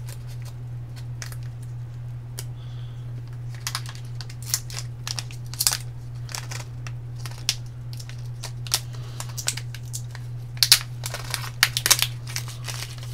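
A small clear plastic bag of LEDs crinkling as it is handled, with scattered sharp crackles that bunch up about five seconds in and again around eleven seconds. A steady low hum runs underneath.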